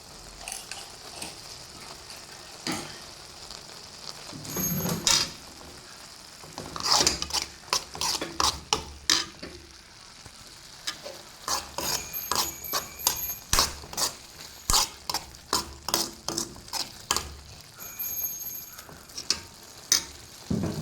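A spoon stirring carrot halwa in a pan, clinking and scraping against the pan about twice a second from about six seconds in, over a faint steady sizzle as the halwa cooks down.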